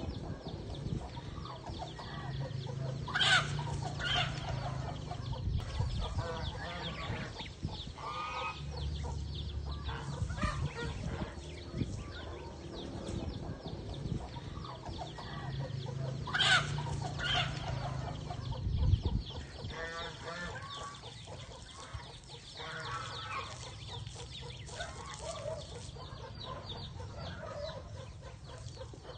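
A hen clucking, with two loud, sharp calls about 3 and 16 seconds in.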